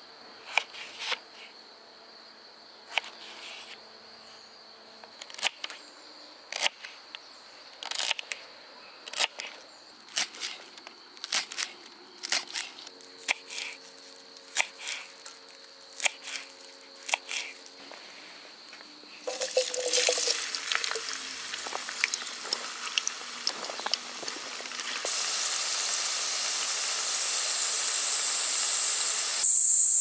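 Steady high insect chirring under a run of sharp clicks and knocks. About two-thirds of the way through, a hiss sets in and grows louder in steps.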